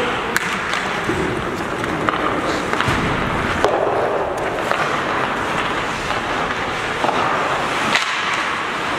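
Ice hockey play on a rink: skate blades scraping the ice over a steady rink din, with a few sharp clacks of sticks and puck.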